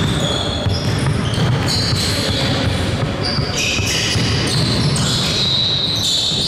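Basketball game on an indoor court: the ball being dribbled and many short, high-pitched sneaker squeaks on the floor, over a steady din of the gym.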